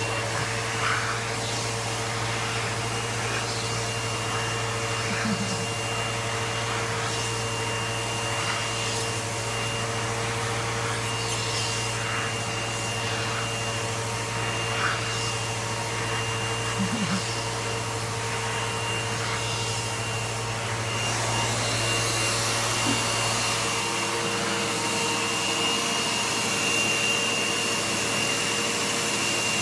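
Vacuum cleaner running steadily with a high whine, being run over a cat's fur. About twenty seconds in it grows louder and hissier.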